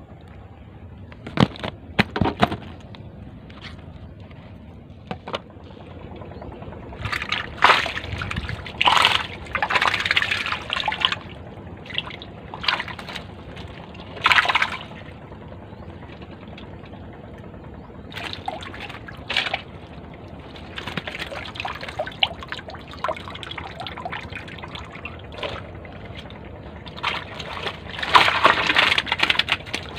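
Water splashing and sloshing in irregular bursts, heaviest about a third of the way in and again near the end.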